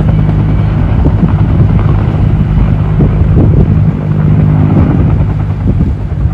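Firefighting helicopter flying close by, its rotor and engine a loud, steady drone.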